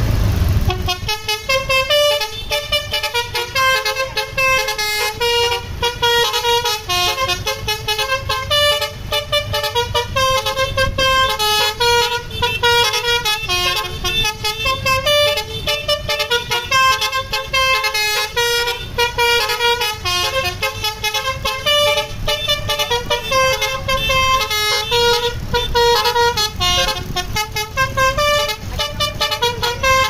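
A bus's telolet basuri musical horn plays a fast, continuous melody of quick changing notes, starting about a second in. The bus's engine rumbles low underneath.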